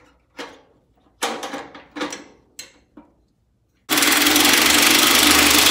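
A few light knocks and clicks of metal parts being fitted. Then, about four seconds in, a power drill starts suddenly and runs steadily for about two seconds, driving the battery hold-down's bolt tight.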